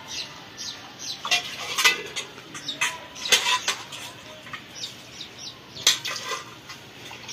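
Steel pots and bowls being washed by hand, clanking and knocking against each other and the concrete, several sharp metallic knocks with short ringing tails.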